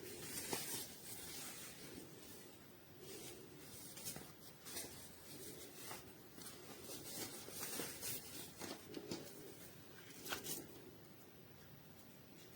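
Faint rustling and rubbing, broken by scattered sharp clicks and taps: handling noise, the loudest click near the end.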